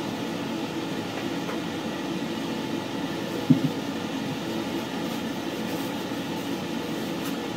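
Steady mechanical hum of room noise, like a fan or air conditioner, with one short knock about halfway through.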